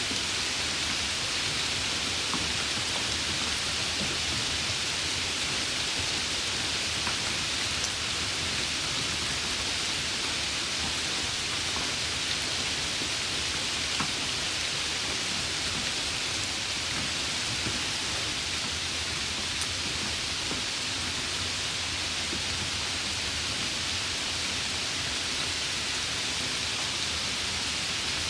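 Steady rain: an even, unbroken hiss, with a few sharper drop ticks here and there.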